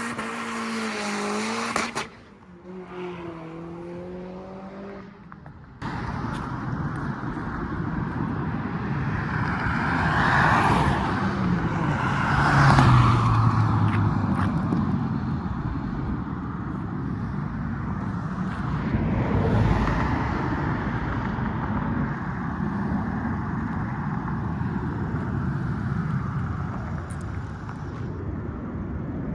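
Car engines running and revving as cars drive past, the pitch rising and falling. The sound changes abruptly about two and six seconds in, then turns to a dense, noisy stretch of passing traffic.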